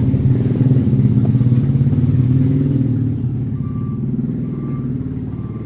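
A motor vehicle's engine running close by with a steady, pulsing low note that slowly fades over the last couple of seconds.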